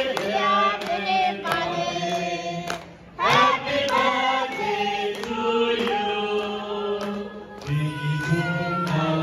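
A group of people singing together in held, drawn-out notes, with a brief break about three seconds in before the voices come back in.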